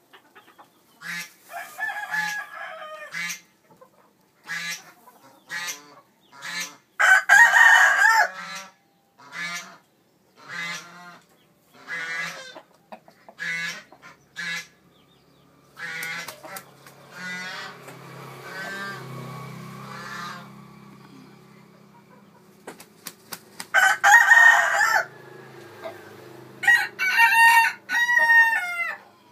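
Rooster calling: a long run of short clucking calls, then two long, loud crows about seven seconds in and about twenty-four seconds in, with a cluster of rising and falling calls near the end.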